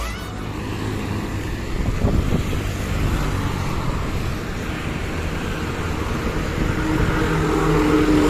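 Road traffic passing: steady engine and tyre noise, with a heavier engine growing louder near the end as a truck passes close.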